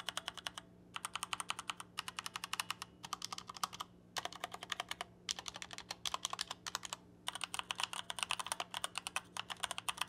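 Pulsar Lunar Alloy PK001 mechanical keyboard, with a metal top plate and Outemu red linear switches, being typed on: quick runs of keystrokes broken by short pauses. Its stabilizers are factory pre-lubed and give little rattle.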